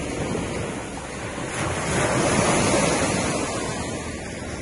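Waves washing in on the shore with wind buffeting the microphone, a steady rush that swells about two seconds in and eases again toward the end.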